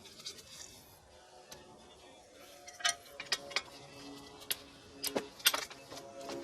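Scattered light metallic clicks and clinks of hand tools and brake parts being handled, more frequent and sharper in the second half.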